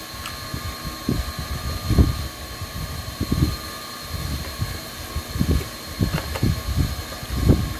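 Eating close to the microphone: chewing and mouth noise heard as irregular low thumps and rumbles, with a faint steady hum underneath.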